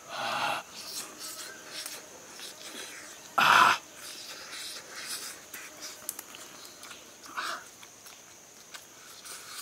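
A person eating noisily by hand: wet lip-smacking and chewing clicks, with louder breathy mouth noises at the start and about three and a half seconds in, and a smaller one near the end.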